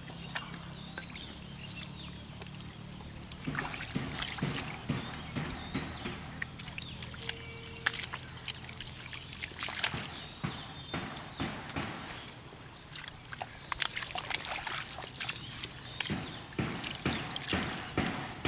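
Hands and bare feet squelching and sloshing in wet mud and shallow muddy water, with irregular splashes and smacks while digging for catfish by hand.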